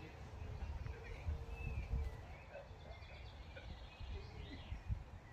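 Outdoor garden ambience: small birds chirping and singing in the background, with low rumbles and a few thumps of wind or handling on the microphone.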